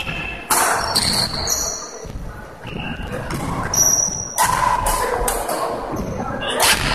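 Badminton rally: several sharp racket strikes on the shuttlecock, with sneakers squeaking briefly on the wooden court floor between them.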